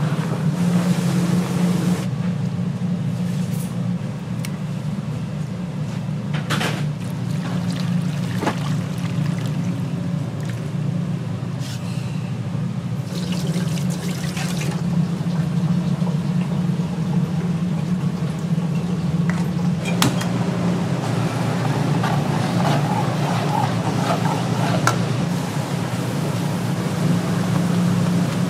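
Water splashing and pouring over a steady low hum, with a few sharp knocks.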